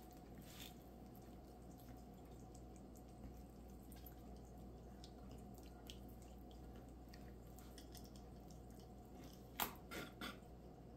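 Quiet room tone with faint wet clicks and ticks from a knife working into a raw chicken's thigh joint, and a few sharper taps near the end.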